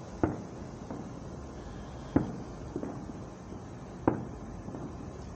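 Distant aerial fireworks going off: three sharp booms about two seconds apart, with fainter pops between them.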